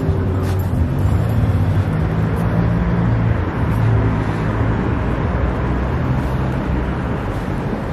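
Close road traffic: car engines running as cars move past on the street, with a low, steady engine note over a hiss of road noise.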